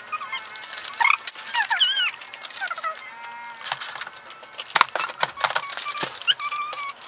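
Sheets of paper and construction paper rustling and crackling as they are lifted and flapped by hand, with scattered squeaky high-pitched chirps rising and falling over it.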